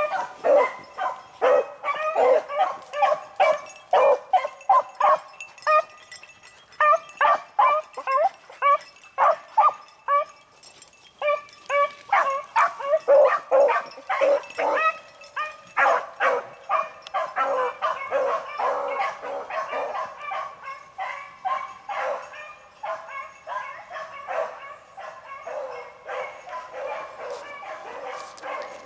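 A pack of beagles baying in short, overlapping barks as they run a rabbit's track through brush. The voices grow fainter near the end.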